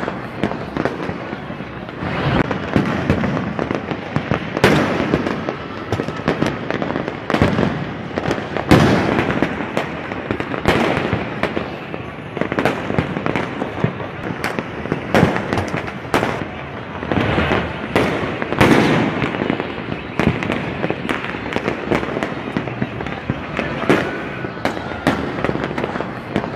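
Fireworks and firecrackers going off over and over, with sharp bangs coming every second or so, irregularly, over a continuous noisy din.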